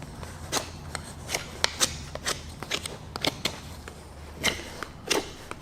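Freshly sharpened and stropped knife blade carving into hard maple: a run of irregular short, crisp cuts and clicks as the edge bites and shaves the wood.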